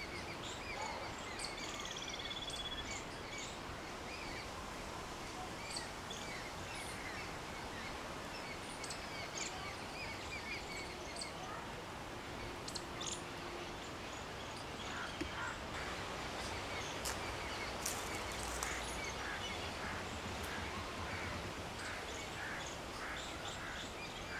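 Outdoor ambience: a steady background hiss with scattered small bird chirps and faint clicks, and a run of short repeated bird calls in the second half.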